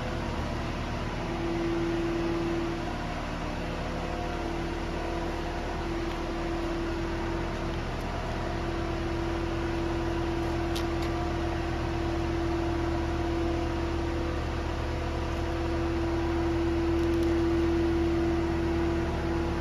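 Samsung SL2500SY CNC turning center running under power: a steady low hum with a mid-pitched whine that fades in and out every few seconds.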